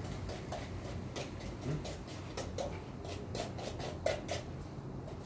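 Irregular light ticks and taps close to the microphone, a few a second, over a steady low rumble.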